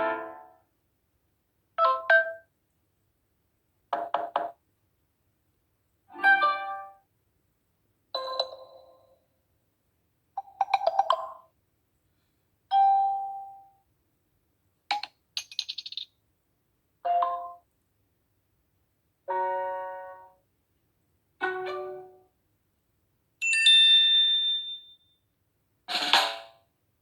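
Samsung Galaxy J7 2017 notification sounds played one after another: about a dozen short, different chimes and jingles, each lasting about a second, one roughly every two seconds with silence between.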